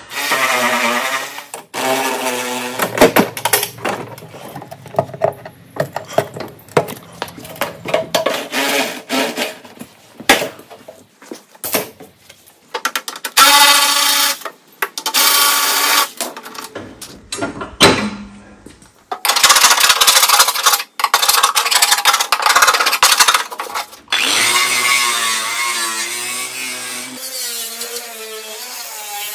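Corded electric power tools running in repeated bursts of a few seconds, the motor's whine wavering in pitch under load. The tools are a drill on the body fasteners and an angle grinder taking rust and old paint off the lawn tractor's steel body.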